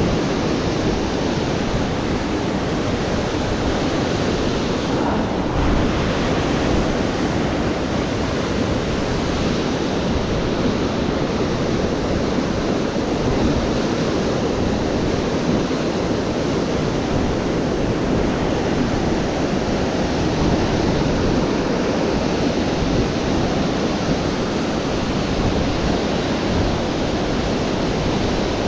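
Steady rush of fast-flowing river water, an even noise with no separate events.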